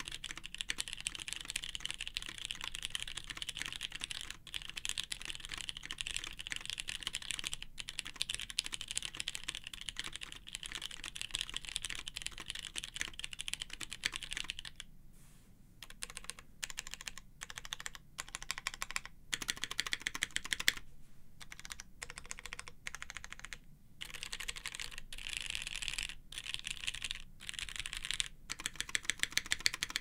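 Hex 3cv2 mechanical keyboard with Cherry MX Clear tactile switches, plateless, with GMK Norse keycaps, being typed on fast and continuously. About halfway through, single keys are pressed one at a time with short gaps, and fast typing picks up again near the end. The sound is picked up through an Electro-Voice RE20 dynamic microphone.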